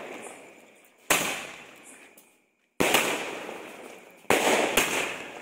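Aerial fireworks going off: four sharp bangs, the last two close together, each trailing off in a long fading rumble and crackle.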